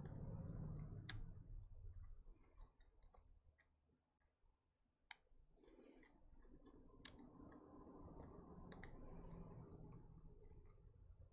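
Faint, scattered clicks and taps of fingers handling small parts inside an opened Nintendo Switch, with a soft rustle of handling between them; the sharpest clicks come about a second in and about seven seconds in.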